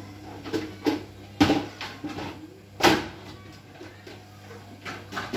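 Small kitchen knife chopping carrot on a wooden chopping board: a handful of irregular knocks of the blade striking the board, the two loudest about a second and a half apart.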